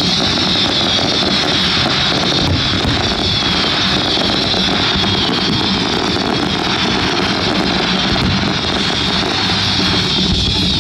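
Steady, loud roaring hiss from a fireworks display over its rock soundtrack. A high hissing band holds level and begins to rise near the end, with no single shell burst standing out.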